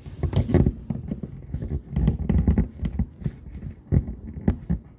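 Irregular knocks, bumps and scrapes of the recording phone or camera being handled and repositioned, close on its own microphone; the heaviest thumps come about half a second in, around two seconds in, and near four seconds.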